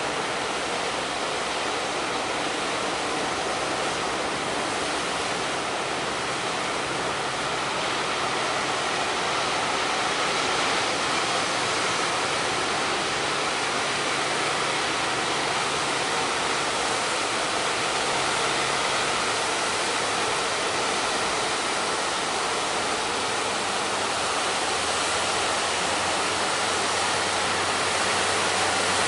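Steady rushing noise of strong wind and heavy surf on the shore, with no breaks.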